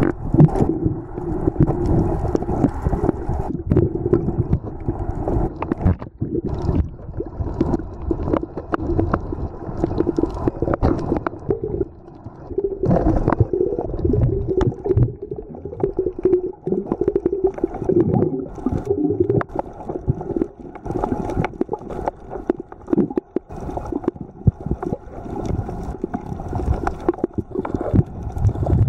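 Muffled underwater sound from a submerged camera: a low, churning rumble of water moving around the housing, with gurgling, a wavering hum and scattered short clicks.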